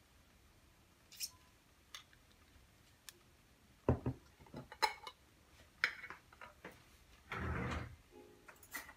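A spoon clinking and tapping against kitchenware as shrimp paste is spooned in: scattered light clicks and knocks, one firmer knock about four seconds in, and a short scraping sound near the end.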